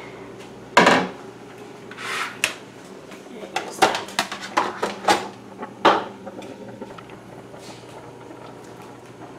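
Kitchen dishes and a spoon clattering: one sharp knock about a second in, a short scrape, then a run of light clinks and taps.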